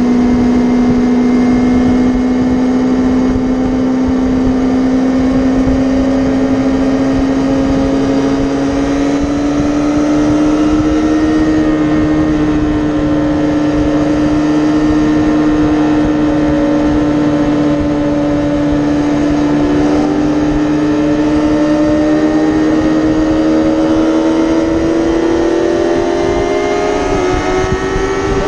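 Yamaha R6 sport bike's inline-four engine pulling steadily at freeway speed, its pitch creeping up slowly as it gains speed and dipping briefly near the end, with wind rushing over the microphone.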